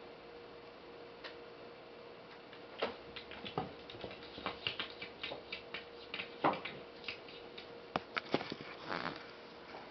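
A cat pawing at a glass coffee table top: irregular light taps and clicks on the glass, beginning about three seconds in and coming in quick clusters.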